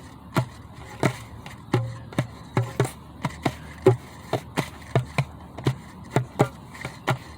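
A drum struck by hand in an uneven, halting rhythm, about two to three beats a second, each beat a short thump with a brief ring.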